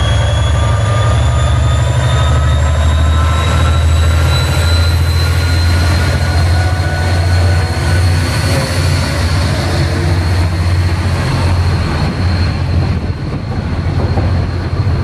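A pair of Class 57 diesel locomotives passing close by. Their EMD two-stroke V12 engines give a deep, pulsing rumble, with a thin whine above that slowly rises in pitch. The rumble eases a little near the end.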